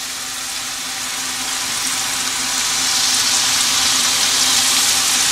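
Marinated salmon pieces sizzling as they shallow-fry in a little oil in a pan, a steady frying hiss that grows a little louder about halfway through. A faint steady hum sits underneath.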